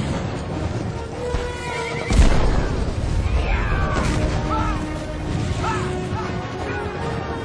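Soundtrack music with a sudden heavy boom about two seconds in, followed by a run of short high cries that rise and fall over the music.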